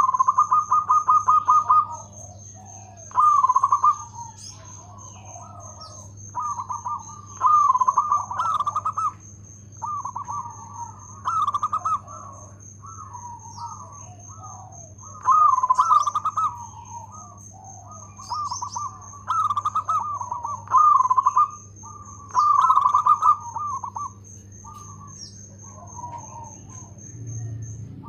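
Zebra dove (perkutut) singing: loud cooing phrases of quick, rattling staccato notes, repeated every second or two with short pauses between.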